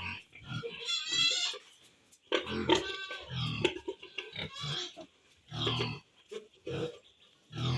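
Farm pigs grunting and squealing in short, separate calls with quiet gaps, a high wavering squeal about a second in.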